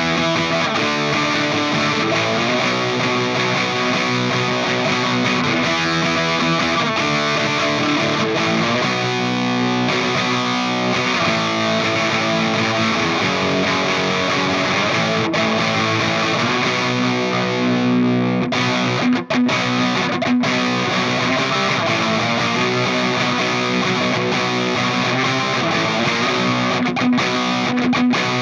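Electric guitar played through distortion and effects, noodling freely with sustained notes, with one brief break about two-thirds of the way through.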